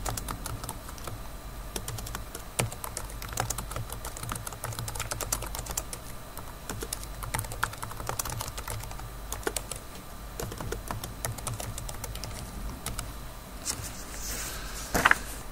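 Typing on a computer keyboard: a quick, irregular run of key clicks as a sentence is typed out, over a steady low hum.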